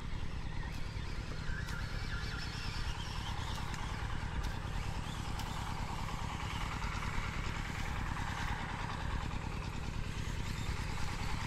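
A small engine running steadily, a low even drone.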